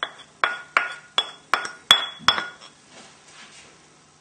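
A quick run of about eight sharp clinks of glass or crockery being struck, each ringing briefly, in the first two and a half seconds, then they stop.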